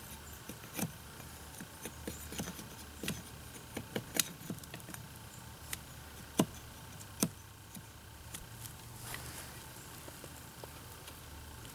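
A blade shaving wood off a stick being carved into an axe handle: a run of sharp, irregular cuts and snaps, thinning out after about eight seconds. The wood is being taken off the outside of the handle's curve to even it out.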